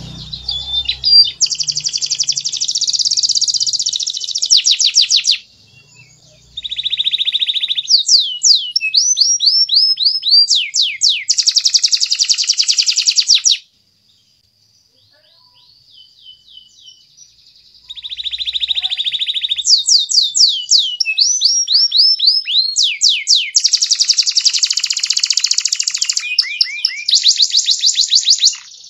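Domestic canary singing: long, rapid trilled rolls alternating with runs of quick falling whistled notes, with a pause of a few seconds about halfway through.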